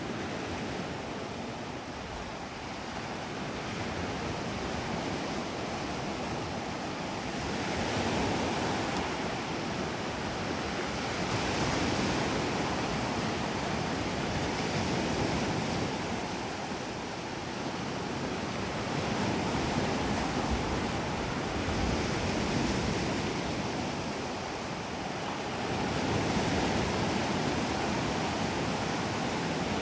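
Sea waves washing onto a gravelly shore, swelling and easing every few seconds, with wind blowing.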